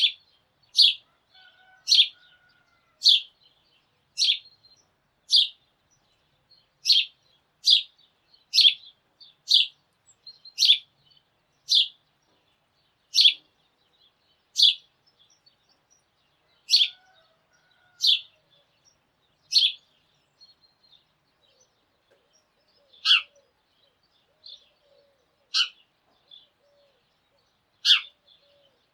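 Sparrow chirping: a series of short, sharp, high chirps, about one a second at first, then thinning to a few spaced chirps in the last third.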